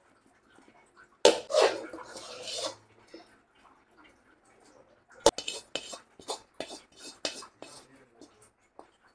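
Metal spoon and vessels clattering against a pan and plate as the set coconut candy mixture is turned out and pressed. There is a loud scraping clatter about a second in, then a sharp knock and a run of quick taps and knocks.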